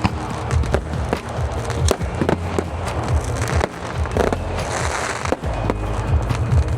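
Fireworks display going off: an irregular run of sharp bangs and crackles, several a second, with music playing underneath.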